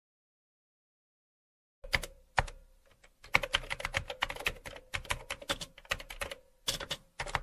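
Rapid, irregular clicking and tapping, several clicks a second, starting about two seconds in after total silence, over a faint steady hum.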